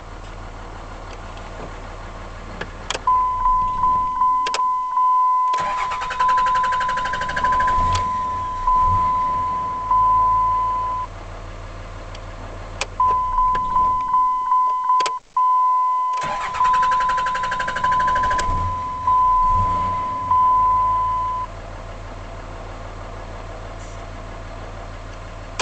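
2005 Dodge Ram's 5.9-litre Cummins inline-six turbo-diesel shut off and restarted twice. Each time the starter cranks briefly before the engine catches and settles into an uneven, loping idle, which the owner suspects means worn injectors. A dashboard warning chime beeps repeatedly through both restarts.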